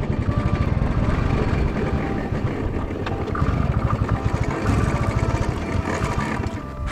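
Royal Enfield Classic motorcycle's single-cylinder engine running at low revs while the bike rolls slowly over a rough dirt lot, a steady low pulsing exhaust note.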